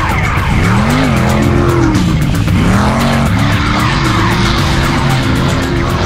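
Class 1 desert buggy's LS7 V8 racing over rough dirt, revving up and dropping off again and again as the throttle comes on and off.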